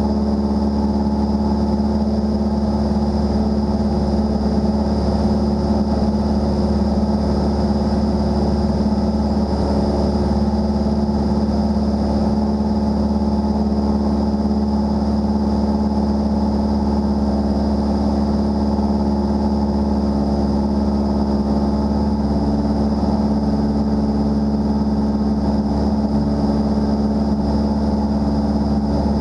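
Single-engine light airplane's piston engine and propeller running steadily in level cruise, a constant low hum that does not change in pitch or loudness.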